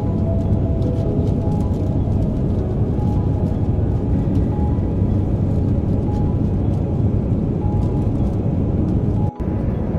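Steady roar inside the cabin of an Embraer 195 airliner in cruise, from its turbofan engines and the airflow. The sound cuts out for an instant near the end.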